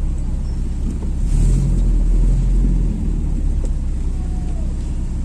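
Low, steady engine and road rumble of a VW Saveiro pickup heard from inside its cab as it creeps along in a drive-thru line, swelling briefly in the first few seconds.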